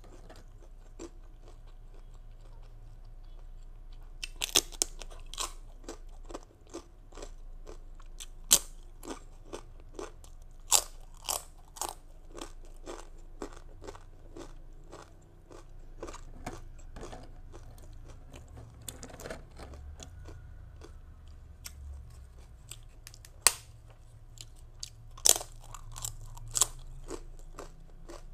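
A person chewing a crunchy toasted sesame rice cracker (bánh đa) with green mango and shrimp salad: irregular sharp crunches, coming in clusters with quieter chewing between.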